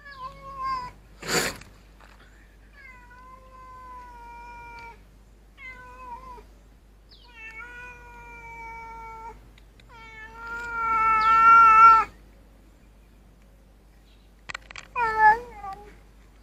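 Siamese cat meowing repeatedly, about six long drawn-out meows, the loudest a long rough meow about ten seconds in. A short noisy burst comes about a second in.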